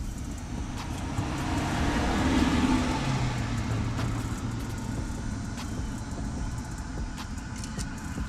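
A vehicle passing by: its road and engine noise swells to a peak about two and a half seconds in, then fades, leaving a low engine hum that dies away a few seconds later.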